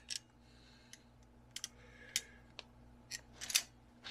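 Light clicks and taps, about a dozen scattered through, loudest near the end, as vise grips and a roll pin are handled.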